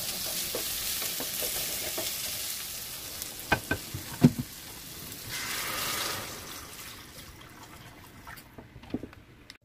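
Pieces of meat sizzling as they are stir-fried in a hot stainless steel pan, with a few sharp knocks of the spatula against the pan about four seconds in. The sizzle dies away near the end as water is poured into the pan.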